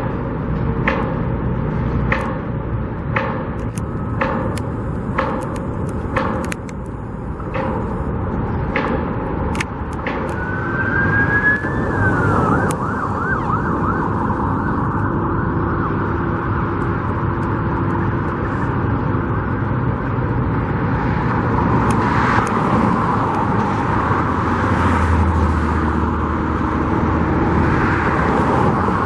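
An emergency vehicle's siren starts about a third of the way in and keeps wailing, its pitch sweeping up and down, over steady road traffic. Before it comes a run of sharp knocks, roughly one or two a second.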